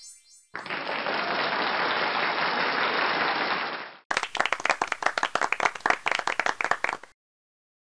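Applause sound effect: a crowd clapping for about three and a half seconds that cuts off abruptly, followed by about three seconds of sharper, separate hand claps that stop suddenly.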